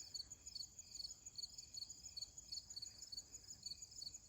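Crickets chirping in a fast, even rhythm, about three chirps a second, over a steady high insect trill; faint.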